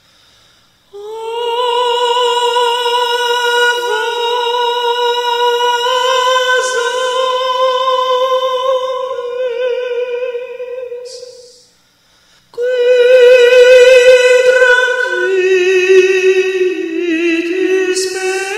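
A solo female voice singing slow, long held notes: one long phrase starting about a second in, a short break about twelve seconds in, then a second phrase that steps down lower.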